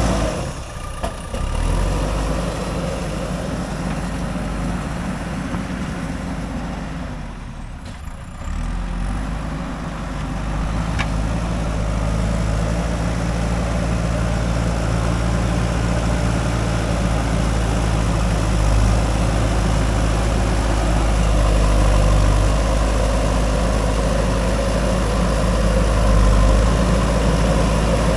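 Diesel engine of a JCB 3DX backhoe loader running steadily, with brief drops in level about half a second in and around eight seconds in.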